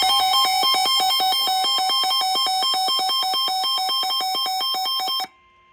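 NOAA Weather Radio tornado warning alert: a loud electronic alarm of rapid pulsing beeps over a steady tone. It cuts off suddenly about five seconds in, leaving a faint steady tone.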